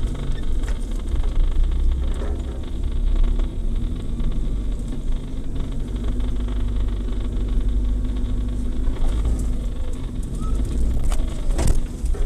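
Off-road 4x4 vehicle engine running with a heavy low rumble, and a single knock near the end.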